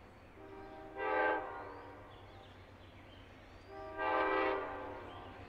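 Distant train horn sounding two blasts about three seconds apart, each a multi-note chord that swells up and then fades.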